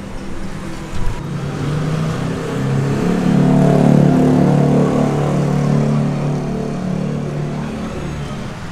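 A motor vehicle's engine runs steadily close by, growing louder about three seconds in and easing off near the end. A single sharp click comes about a second in.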